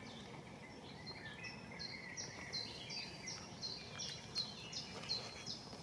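A bird singing a run of short, high notes, about two or three a second, starting about a second in over faint steady background noise.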